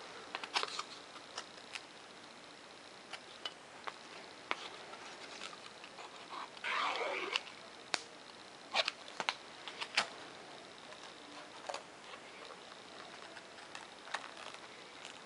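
Hands handling thin foam-board model parts: scattered light clicks and taps, with a brief louder rub about seven seconds in.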